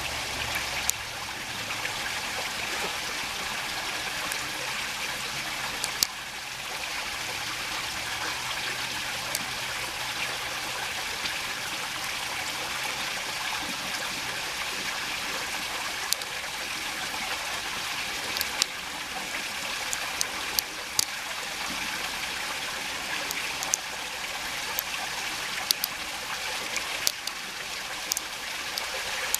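A creek running steadily over stones, a continuous rushing trickle. Scattered small sharp clicks stand out above it, more of them in the second half.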